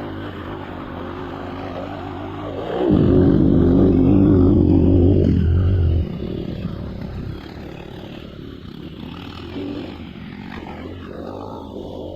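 Trail motorcycle engine running, revved hard for about three seconds about three seconds in, then dropping back to a lower, rougher run.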